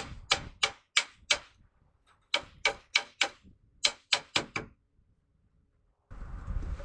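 Three quick runs of sharp knocks, about three a second, like a tool striking wood. Near silence follows, then from about a second before the end a steady outdoor rush of wind on the microphone.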